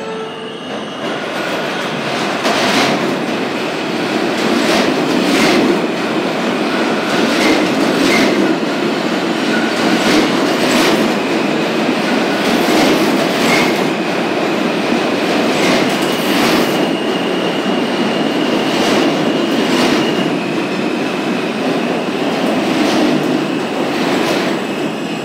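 R160A-1 subway train pulling into the station: a loud, steady rumble of wheels on rail with repeated clacks as the wheels cross rail joints. A thin high squeal joins about halfway through as the train slows along the platform.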